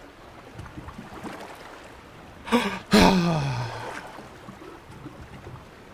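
A man's wordless vocal reaction about two and a half seconds in: a short sound, then a longer, louder one falling in pitch, a stunned sigh.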